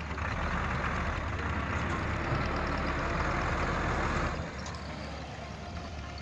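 Dump truck engine working hard to drive out of mud, with a loud rushing from the engine and spinning wheels that eases off about four seconds in, leaving the engine running lower.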